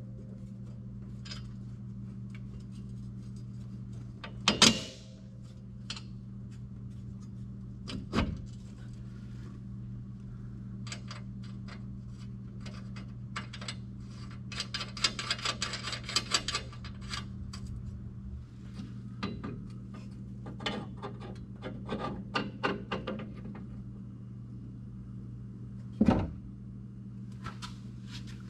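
Hand-tool and hardware work on a side-by-side's steel lift bracket and shock mount: scattered metal clicks and clinks, a few sharper knocks, and a run of quick clicking about halfway through, over a steady low hum.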